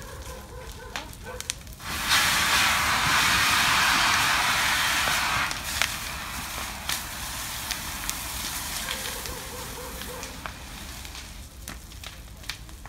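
A burning barn crackling with scattered sharp pops. About two seconds in a loud hiss sets in, holds for a few seconds, then drops to a weaker hiss that slowly fades.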